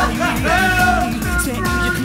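Background music with a steady beat and a held melody line.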